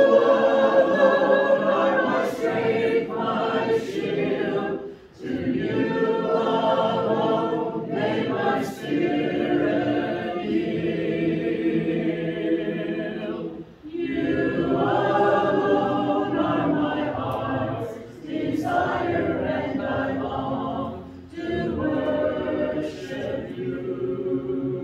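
Church congregation singing a hymn a cappella, with no instruments, in long held phrases separated by short pauses for breath.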